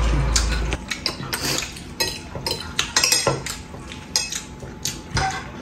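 Forks clinking and scraping against ceramic plates as people eat, in many short irregular clicks. A low hum sounds under the clinks for the first second or so.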